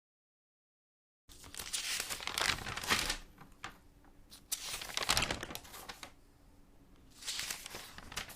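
Paper pages flipped continuously, rustling in three long swells with quieter patches between, starting about a second in after digital silence.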